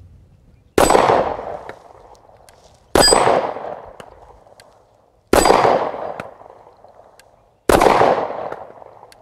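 Four shots from a Kahr CW9 9mm pistol firing Hornady Critical Defense hollow-point rounds, about two to two and a half seconds apart. Each is a sharp crack that fades out over a second or more.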